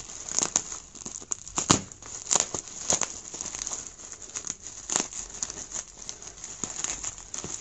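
Plastic bubble wrap crinkling and crackling in irregular bursts as it is handled, pierced with a pen tip and pulled open.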